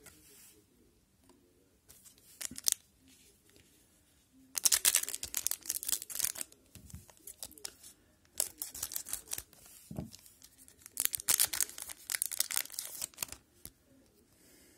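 Wrapper of an Upper Deck hockey card pack crinkling and being torn open by hand, in three noisy bursts of a second or two each.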